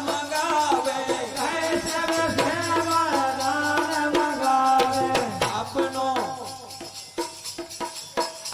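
Live Bundeli bhajan music: a sustained melodic line over jingling percussion and drum strokes. The melody thins out about halfway through, leaving sparse percussion.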